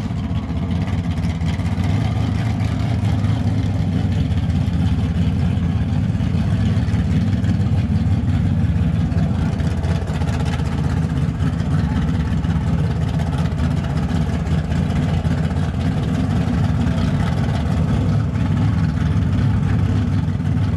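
Chevrolet Camaro drag car's engine idling loudly and steadily at the starting line after its burnout, waiting to launch.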